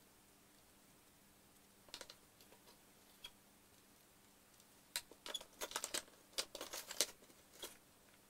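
Light clicks and rattles of hard plastic parts being handled and set down on a workbench: a few about two seconds in, then a busy cluster from about five seconds in that stops before the end.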